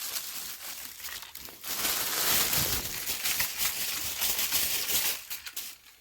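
Packaging crinkling and rustling as a boxed air compressor is pulled out of its wrapping. It is a dense crackle that gets louder about two seconds in and dies away near the end.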